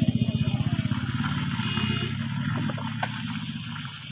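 Motorcycle engine running with a fast, even pulse, growing steadily fainter until it has nearly died away near the end.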